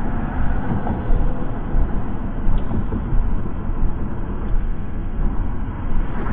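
Road noise inside a moving car: a steady low rumble with small, irregular bumps.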